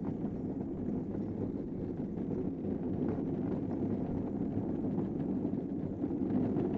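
Downhill kart rolling fast down an asphalt track: a steady rumble of wheels on pavement, with rattling from the kart itself.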